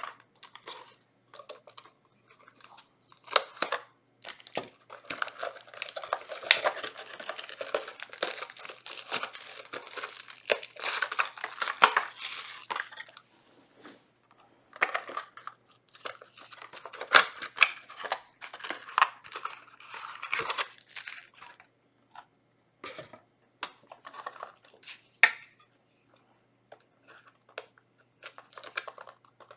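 Crinkly trading-card booster packaging being torn open and crumpled by hand. There is a long stretch of dense crinkling and tearing in the first half, then scattered crackles and small clicks as the wrappers are handled.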